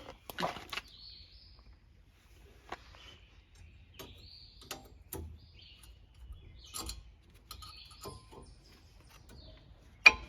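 Scattered metallic clicks and knocks of a brake pad, the inner pad with the wear sensor, being pushed into the clips of the caliper bracket; the sharpest knock comes near the end. Birds chirp in the background throughout.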